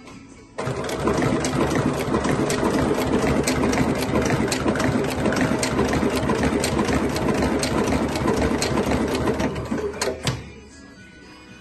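Dürkopp Adler 204-105 industrial sewing machine stitching a decorative seam through leather. It starts abruptly about half a second in, runs steadily with evenly spaced clicks of the needle strokes, and stops near the end with a couple of clicks.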